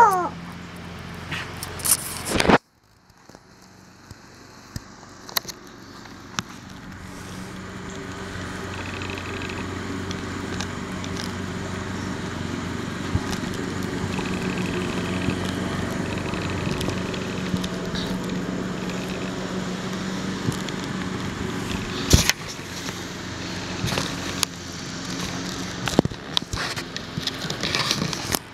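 A beagle's short falling yowl at the start, then a long stretch of crackling and scraping from dry leaves and dirt as the dog rolls and wriggles on its back, with a steady low hum underneath and a few sharp clicks near the end.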